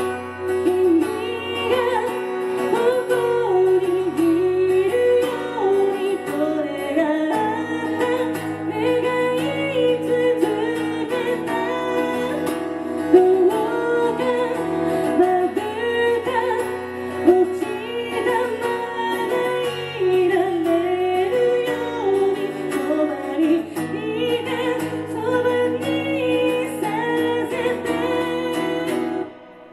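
A woman singing a song while accompanying herself on an acoustic guitar. The music breaks off briefly just before the end.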